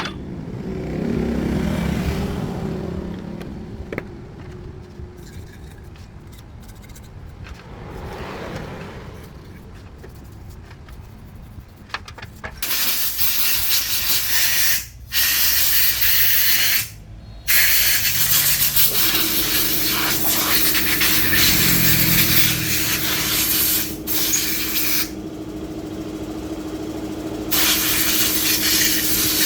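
A jet of compressed air or spray hissing loudly in long bursts with brief stops, with a steady hum running underneath in the later part.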